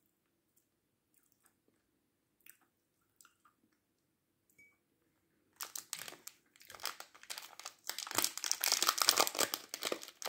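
A few faint mouth clicks, then about five and a half seconds in, a crinkly plastic candy wrapper being crumpled and pulled open, a dense crackling that grows louder toward the end.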